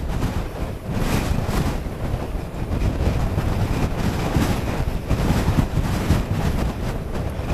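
Strong gusting wind buffeting the microphone of a camera on a moving bicycle: a loud, uneven rumble that surges and eases every second or so.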